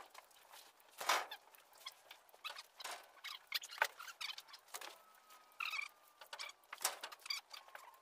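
Faint, scattered clicks, taps and rustles of goats and cattle moving about in mud and hay, with a few short high chirps and a faint steady whine from about halfway through.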